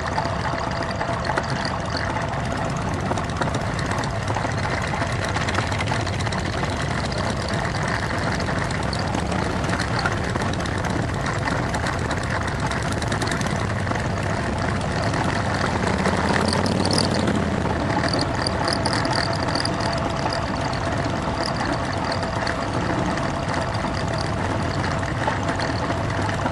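Motorcycle engines running at low speed as bikes ride slowly in a line, with a steady hum and a slight swell in level about two-thirds of the way in.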